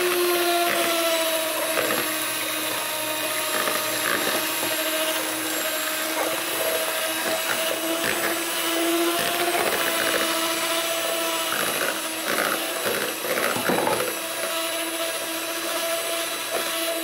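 Electric hand mixer running at a steady speed, its two beaters whipping eggs and sugar in a bowl.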